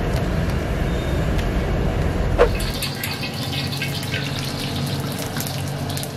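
Hand-pulled noodles going into a large pot of boiling water, with a steady low rumble and a sharp knock about two and a half seconds in. From about three seconds in, beaten egg poured into hot oil in a wok sizzles and crackles.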